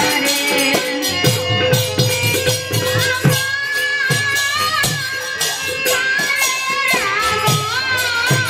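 Devotional kirtan music: a khol barrel drum beaten in a steady rhythm, with jingling hand cymbals and a wavering melody line over it.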